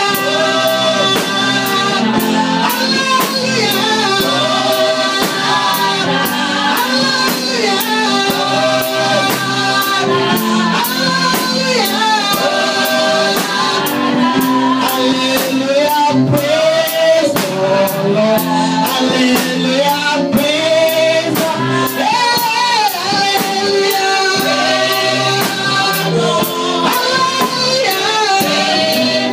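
Gospel praise singing with a live band: voices over guitar and drum kit, with a steady beat.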